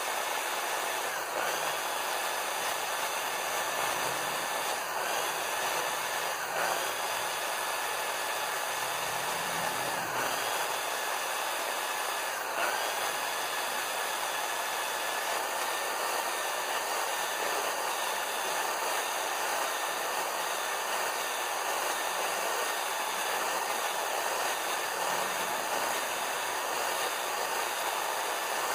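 Black & Decker corded electric drill running steadily, spinning a motorcycle exhaust valve against its seat in the cylinder head to lap it in with grinding paste. The motor's pitch dips briefly a few times as the load changes.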